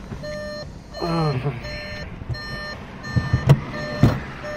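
Skoda Octavia's dashboard warning chime beeping over and over, a little more than once a second. A brief voice sound comes about a second in, and two sharp knocks near the end are the loudest sounds.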